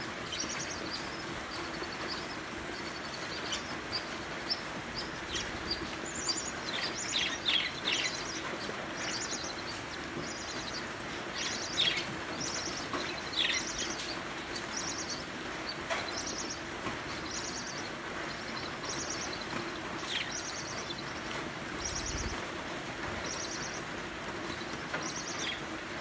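Zebra finches calling with short high chirps, repeated about once a second, with a few quicker chirps in the first half, over a steady background hiss.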